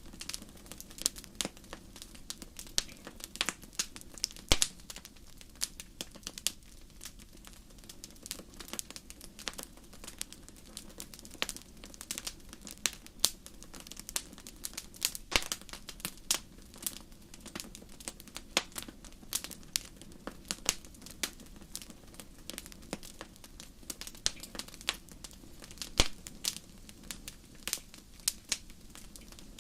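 Wood fire burning in a fireplace, crackling with irregular sharp pops and snaps, several a second.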